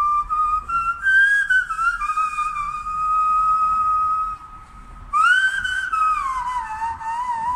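A whistled melody blown through cupped hands (hand flute), with a clear, pure tone. Short notes step upward to a long held note. After a short break a little before the end it swoops up, slides back down and ends on a wavering note.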